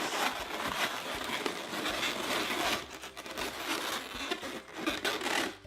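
Inflated latex 260 modelling balloons rubbing and squeaking against each other as they are twisted together, a continuous crackly rubbing.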